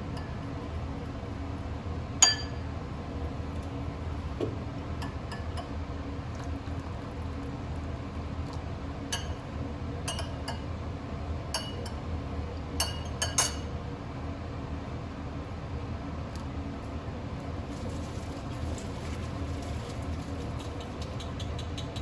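Glass or ceramic tableware clinking in a kitchen: one loud ringing clink about two seconds in, then a run of lighter clinks about halfway through, over a steady low hum.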